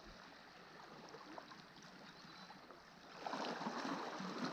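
Small waves of calm sea water lapping and washing against shoreline rocks, a soft even wash that grows louder about three seconds in.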